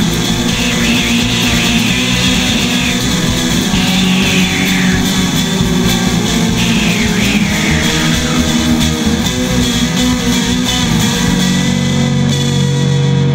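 Rock music with electric guitar over a steady beat, with a few high notes sliding down in pitch. Near the end the beat and the treble drop away, leaving a held low chord.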